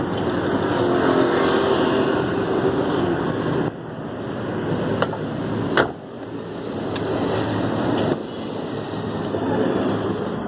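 Chevrolet Captiva engine running after a new battery was fitted. The engine now runs normally. It is a steady, loud noise that drops in level abruptly twice, with a couple of sharp clicks in the middle.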